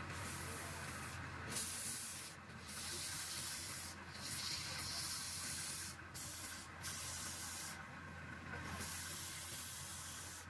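Sandpaper hissing against a wooden pot spinning on a wood lathe, in passes broken by short pauses every second or two. The lathe's steady low hum runs underneath.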